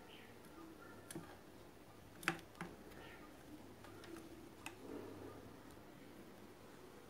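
A few faint, sharp clicks and taps of small hand tools against a circuit board during desoldering work, over a low steady hum. The loudest tap comes a little over two seconds in.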